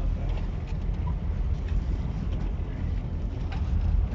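Fishing boat under way: a steady low rumble with wind noise over the microphone.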